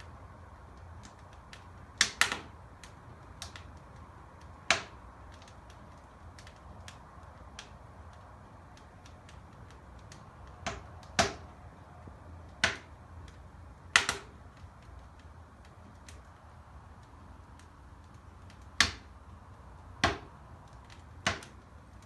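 Wood fire burning in a cast iron fireplace stove, crackling with scattered sharp pops, about ten loud ones among many faint ticks, over a low steady background.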